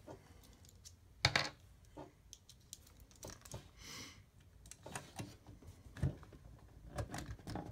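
Scattered small clicks and taps from handling an audio interface's case and a screwdriver during disassembly, with a sharper double knock about a second in and a brief scraping hiss near the middle.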